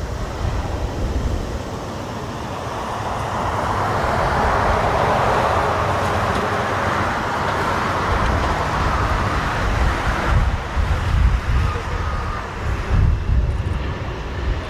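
Jet engines of a McDonnell Douglas MD-11F on a crosswind landing, a rushing roar that swells over a few seconds, holds, and stops abruptly about ten seconds in. Strong gusting wind buffets the microphone throughout.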